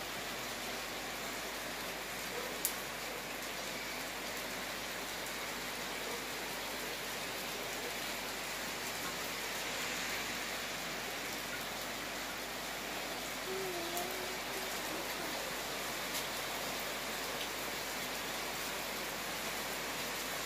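Heavy rain falling steadily: an even hiss, broken by a few sharp ticks, the loudest about two and a half seconds in.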